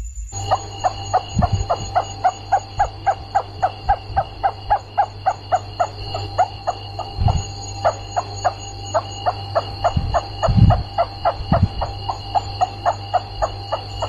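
Rats squeaking: an even, rapid series of short squeaks, about four a second, over a steady low hum and a high-pitched whine.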